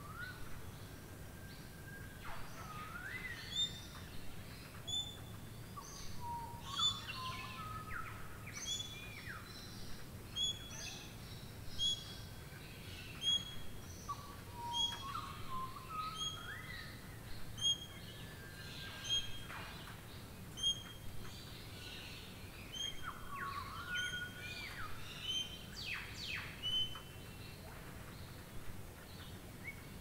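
Several birds calling over a steady hiss of rain. One bird repeats a short high note at an even pace, a little over a second apart, while others give lower calls that rise and fall.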